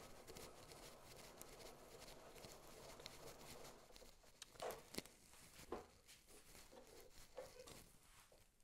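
Near silence with a few faint knocks and clicks in the second half, from the parts of a Rikon planer-jointer being handled as it is switched back from thicknessing to jointing mode.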